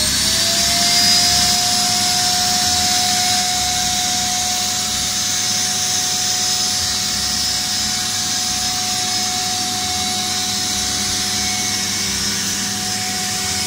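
Electric air pump spinning up with a rising whine, then running steadily as it inflates the bow chamber of a PVC inflatable boat through a corrugated hose.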